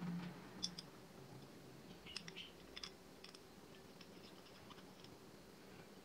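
Faint, light clicks and taps of a small ceramic drawer and its wooden knob being handled as the knob is screwed onto the drawer. The clicks come scattered over the first few seconds, then it goes almost quiet.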